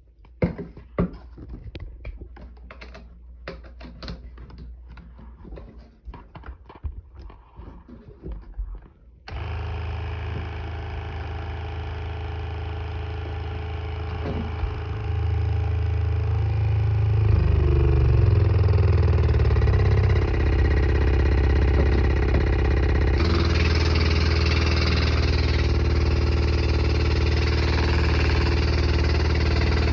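Handling clicks and knocks, then about nine seconds in a small pump motor switches on and runs with a steady buzzing hum; it gets louder and shifts in pitch partway through, and a hiss joins it near the end. The source is a water flosser.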